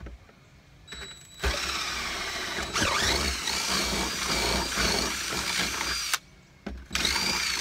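DeWalt cordless drill boring a hole through the boat's fiberglass console. It runs in two goes: a long spell of about five seconds, its whine rising early on and then holding, a short pause, then a second run near the end.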